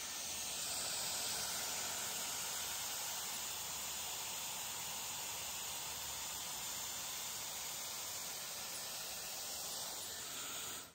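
Dyson Airwrap blowing hot air through its smoothing dryer attachment, a steady rushing hiss of airflow that cuts off suddenly near the end as it is switched off.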